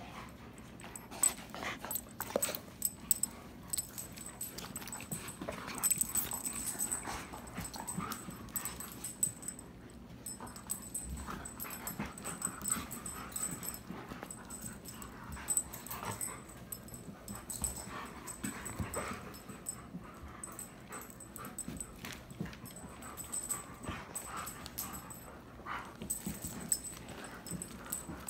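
German Shepherds playing together, giving short irregular whines, yips and growls, with scuffling between them.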